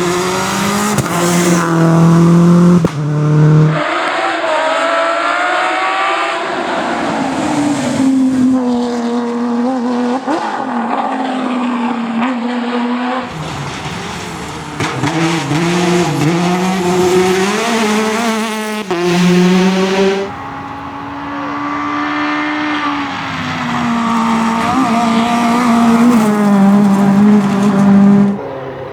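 Rally cars driven hard, engines revving up and dropping in pitch through gear changes. There are several passes, with the sound changing abruptly about 4, 13 and 20 seconds in.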